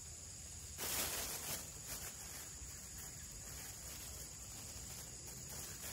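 Outdoor ambience with the steady high drone of insects. About a second in there is a short rustling noise, with a few fainter rustles after it.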